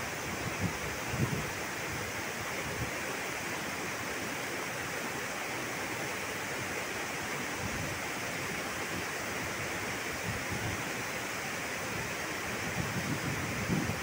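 River water rushing over rocks in shallow white-water rapids: a steady, even rush.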